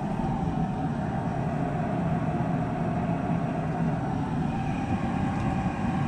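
Riello oil burner on a boiler running: a steady rumble from its blower and flame, with a faint steady tone on top.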